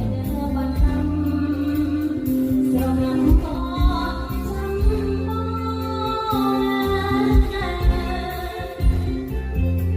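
A song with singing over a steady drum beat and bass.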